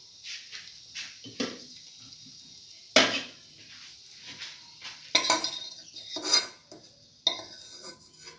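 Perforated metal skimmer scraping and clinking against a metal pan while lifting out fried raisins, with a sharp knock about three seconds in and several more in the second half.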